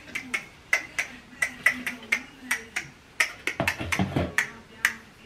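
Quick, uneven clicks and clacks, a few each second, from small hard decorations being handled and set down while being sorted, with a duller knock or rustle a little past halfway.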